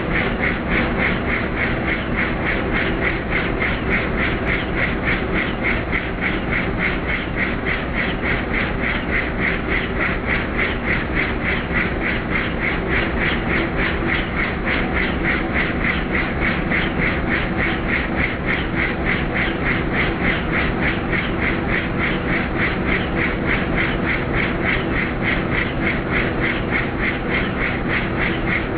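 Helicopter in flight: rotor blades chopping at a rapid, even rate over the whine and rush of the turbine engine, running steadily without change.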